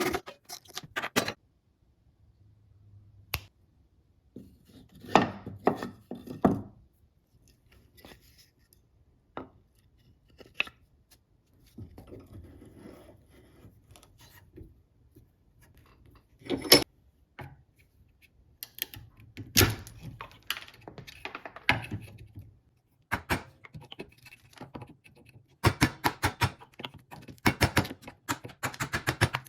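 Irregular knocks and clinks of metal and tools being handled at a workbench, some strikes ringing briefly, turning into a quick run of sharp taps near the end.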